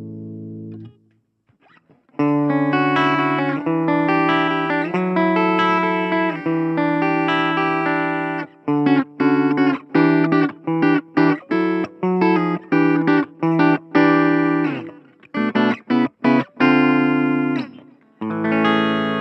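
PRS Custom 22 electric guitar played clean through a Blackstar Fly 3 mini amp. A chord rings out and dies away, and after a pause of about a second come several seconds of sustained chords. Then a run of short, choppy chord stabs follows, and near the end one chord is left ringing.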